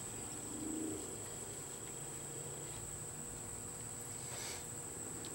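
Insects chirring steadily outdoors, a thin high steady buzz. A brief faint low hum comes about half a second in.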